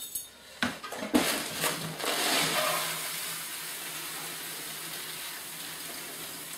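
A few sharp knocks, then granular bonsai soil pouring from a metal scoop into a training pot. The pour is a steady rushing hiss that starts about two seconds in and slowly fades.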